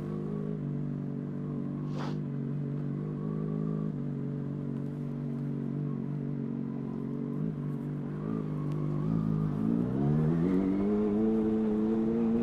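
Yamaha FZ6 Fazer's inline-four engine breathing through a Two Brothers aftermarket exhaust, running at a steady low speed, then accelerating about nine seconds in with its pitch rising. A single short click is heard about two seconds in.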